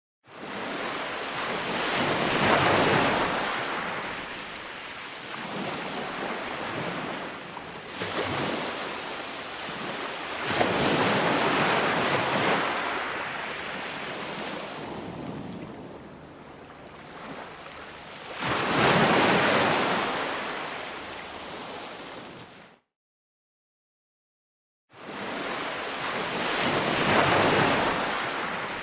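Ocean waves crashing, one surge of surf swelling up and washing out after another, about four in all. The sound cuts to dead silence for about two seconds near the end before the surf returns.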